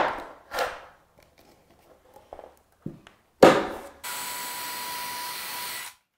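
Knocks of a pocket-hole jig being clamped onto a pine board, and a louder knock about three and a half seconds in. Then a cordless drill runs a pocket-hole bit for about two seconds: a steady whine that cuts off suddenly.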